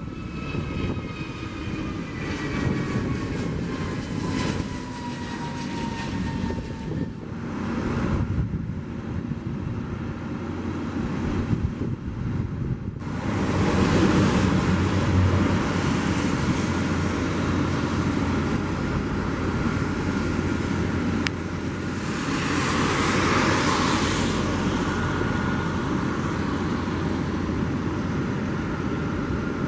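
Jet airliner engines: a departing jet's engine whine falls steadily in pitch over its roar as it climbs away. About halfway through the sound changes abruptly to a louder, steady roar of a jet on approach and landing, swelling for a couple of seconds and ending with a steady engine whine.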